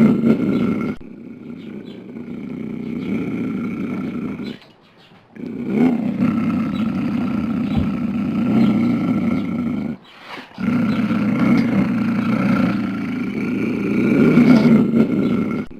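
Mountain lion growling in long, rough stretches, broken by two short pauses about five and ten seconds in.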